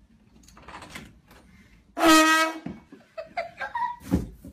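A trumpet blasts one loud, sustained note for about half a second, about two seconds in. A few short, higher sounds follow, then a low thud a little after four seconds as a child falls onto the carpeted floor.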